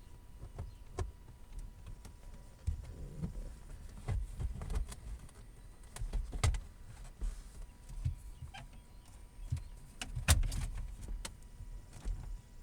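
Irregular clicks, taps and knocks of plastic center-console trim and the switch being handled and fitted back into place, with one louder knock about ten seconds in.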